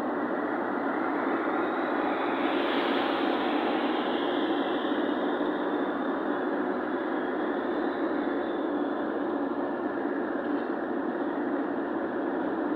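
Steady road noise of a moving vehicle: an even rushing hum that holds without change.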